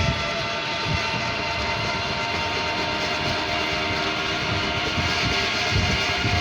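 Dhaka Metro Rail electric train running, a steady whine of several held tones over a low rumble.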